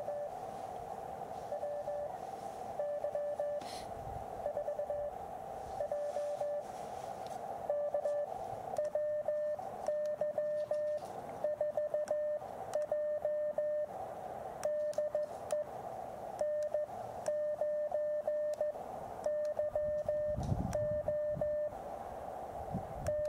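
Morse code (CW) from an Elecraft KX2 transceiver: a single steady beep keyed on and off in dots and dashes over a constant hiss of band noise. It sends sparse, spaced groups at first, then continuous busy keying from about eight seconds in.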